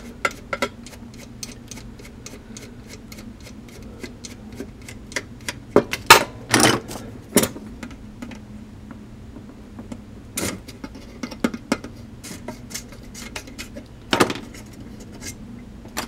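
Small metal clicks and taps as the right-hand keys of a Selmer Mark VI soprano saxophone are worked loose and taken off, keys knocking against the posts and body. Several louder knocks come about six to seven and a half seconds in, and again around ten and fourteen seconds.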